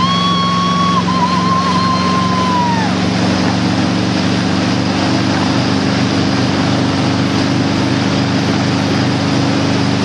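Towboat engine running steadily under way while pulling a wakeboarder, with the rush of wind and water over it. A high held tone sounds for about the first three seconds and falls away at its end.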